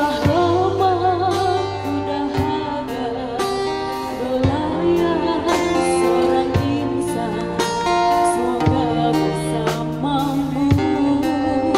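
A woman singing a song into a microphone over a live band of strummed guitar and drums, with a drum stroke about every two seconds.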